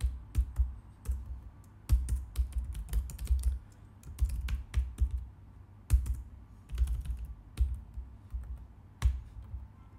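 Typing on a computer keyboard: rapid key clicks in short bursts with brief pauses between them.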